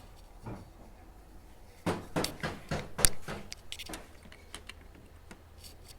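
Clicks and knocks of small parts being handled: a quick run of them about two seconds in, the sharpest just after three seconds, then a few lighter ticks.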